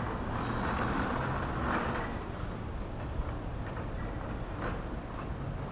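Road traffic noise on a city street, with one vehicle passing and swelling up then fading in the first two seconds.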